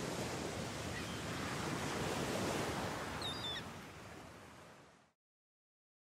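Steady wash of sea waves, fading out over the last couple of seconds and stopping about five seconds in.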